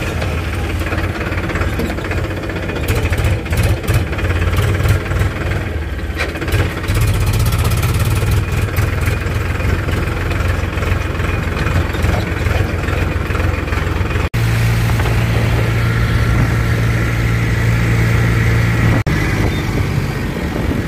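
Powertrac Euro 50 tractor's diesel engine running steadily as the tractor drives along. The sound drops out for a split second about two thirds of the way through and again near the end.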